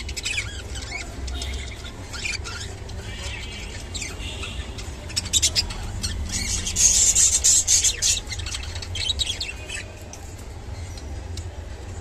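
Budgerigars chattering and squawking in short scratchy bursts, the courtship chatter of a pair at the nest, loudest about seven seconds in. A steady low hum runs underneath.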